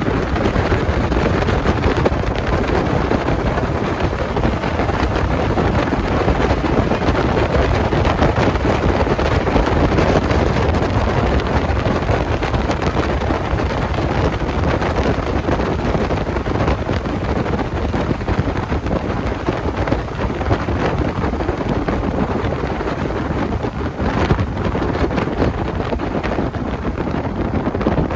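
Steady heavy wind rushing over the microphone in an open Willys CJ3A Jeep driving fast, with the Jeep's road and running noise underneath.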